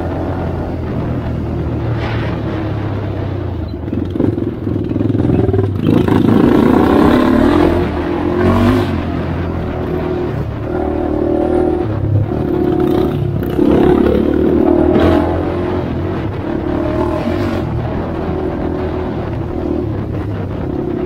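Honda 400EX ATV's single-cylinder four-stroke engine running as the quad is ridden along a dirt trail, revving up twice about a third and two-thirds of the way through and easing off between. A few sharp knocks and rattles from the ride are mixed in.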